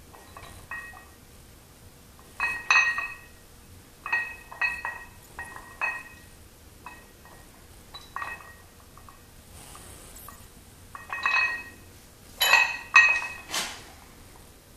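Iron weight plates on a plate-loaded dumbbell clinking against each other as it is curled up and down: clusters of sharp, ringing metal clinks, one with each repetition, the loudest near the end.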